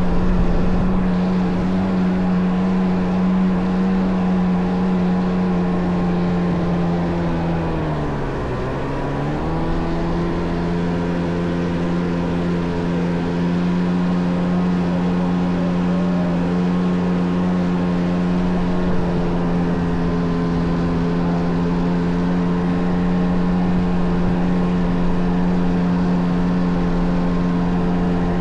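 Kawasaki JS550 stand-up jet ski with a swapped-in 650 two-stroke engine running at a steady cruising throttle. About eight seconds in the revs drop sharply as the throttle eases off, then climb back and hold steady.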